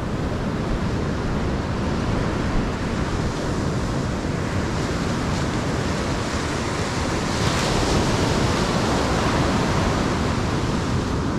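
Ocean surf breaking and washing up a sandy beach, a steady rushing wash that swells as a wave breaks about seven to eight seconds in.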